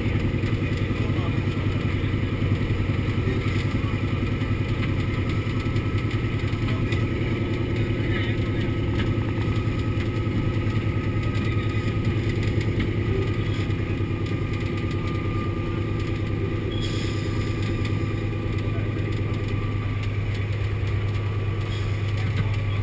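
Antonov An-2's nine-cylinder radial engine running steadily, heard from inside the aircraft's cabin.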